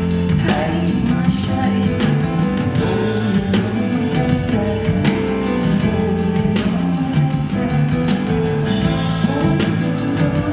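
Live rock band playing, with a drum kit keeping a steady beat and bass guitar under sustained keyboard and guitar parts.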